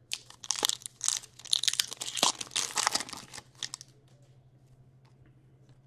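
Crinkling and rustling of plastic and wrapper as trading cards are handled, in a run of short crackles that stops a little before four seconds in.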